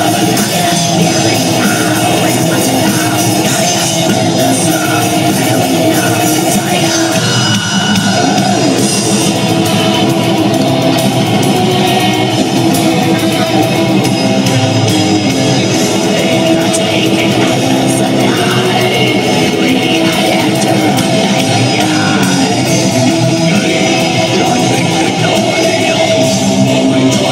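Heavy metal band playing live: electric guitars, bass guitar and drum kit, loud and unbroken.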